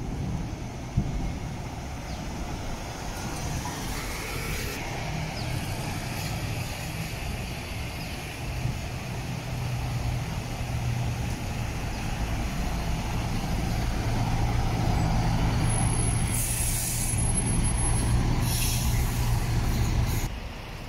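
Diesel engines of city buses running close by, with a steady low hum that grows louder in the second half as a bus pulls up. Two short hisses of compressed air from the air brakes come near the end.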